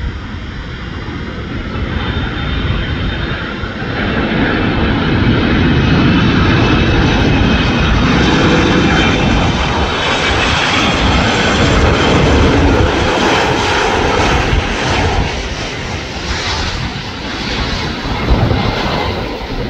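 Boeing 767 freighter's twin jet engines on final approach. The engine noise swells as the jet comes in low, with a faint high whine, stays loud, eases slightly and rises again near the end as it nears touchdown.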